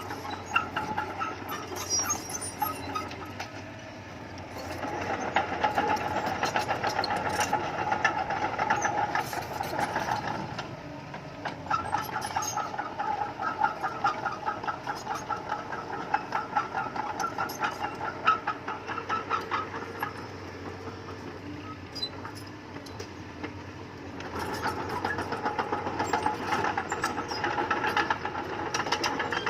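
Bulldozer's diesel engine working, with a fast pulsing rattle and short clanks throughout. It swells louder three times: about five seconds in, around twelve seconds in, and near the end.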